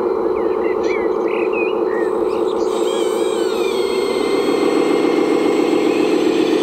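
Radio-controlled scale model vehicle running steadily, with a continuous engine-like drone.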